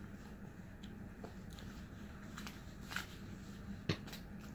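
Quiet room with a few light clicks and rustles, the sharpest one near the end.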